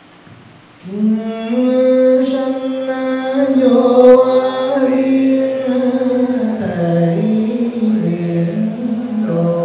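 Slow devotional Buddhist chant-like singing. It starts about a second in, holds one long note for several seconds, then moves through shorter notes that step up and down.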